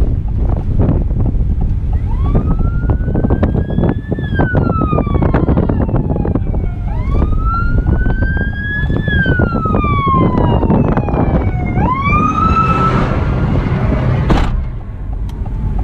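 A siren wails, climbing quickly and then sliding slowly down in pitch about every five seconds, and stops near the end. Underneath is a steady rushing noise full of small ticks.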